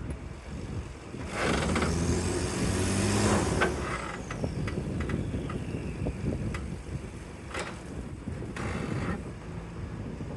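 Turbocharged Ford Ranger engine running through newly fitted equal-length downpipes and high-flow cats. It is revved once about a second in, with a high whistle that falls away as the revs drop back. It then idles with scattered light ticks and a short hiss near the end.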